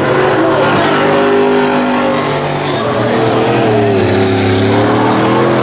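Pickup truck engines running as the trucks drive past. The engine note holds steady, dips about four seconds in, then rises again.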